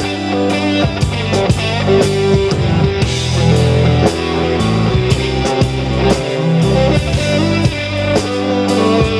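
A band playing an instrumental passage of a rock song: guitar over bass and drum kit, with no singing.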